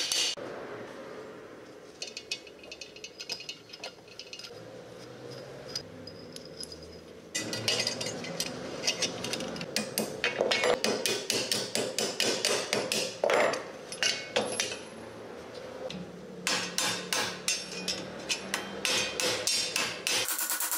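Light metal clicks and handling for the first several seconds, then a hammer striking steel in quick repeated blows, several a second, from about seven seconds in, on the parts of an old folding steel shovel.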